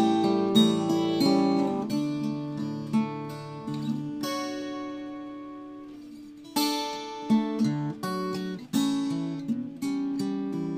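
Solo acoustic guitar playing a Christmas melody with picked notes and strums. About four seconds in, a chord is left to ring and fade for a couple of seconds before the playing picks up again.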